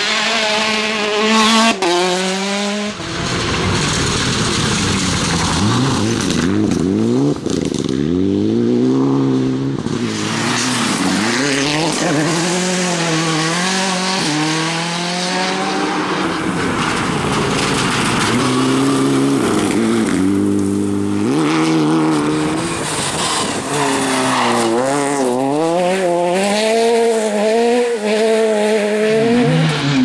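Four-cylinder rally cars driven flat out on a gravel stage, one after another. Each engine revs hard, its pitch rising and falling repeatedly with gear changes and lifts off the throttle, over the hiss of tyres on gravel.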